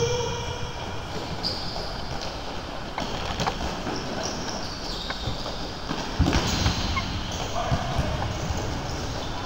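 Indoor court game: shoes squeaking on the floor and a ball thudding, over a background of voices in a large hall.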